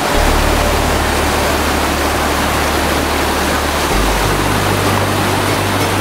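Steady rushing and splashing of a small mountain stream cascading over boulders and cobbles.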